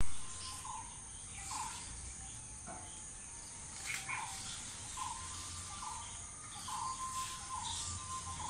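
Outdoor ambience: a steady high insect drone, with a bird repeating a short, buzzy low call over and over. There is a brief bump right at the start.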